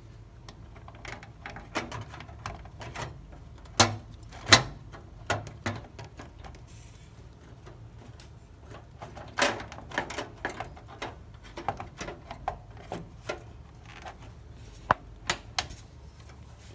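Irregular clicks and knocks of a graphics card and metal PC case being handled as the card is fitted into the motherboard's slot. The loudest are two sharp knocks close together about four seconds in.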